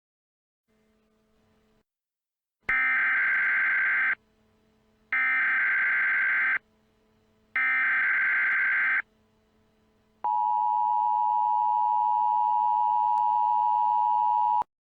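Emergency Alert System signalling: three short bursts of SAME header data tones about a second apart, then the two-tone attention signal, a steady dual tone held for about four seconds, announcing that an emergency message follows.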